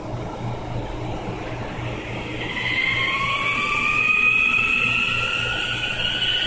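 Washing machine making an abnormal noise: a whine that starts about two seconds in and slowly rises in pitch, over a steady, pulsing low hum.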